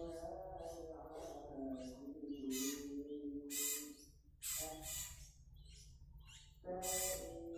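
Young tame songbirds calling: a wavering, pitched call, then several harsh, rasping squawks about three and five seconds in and again near the end.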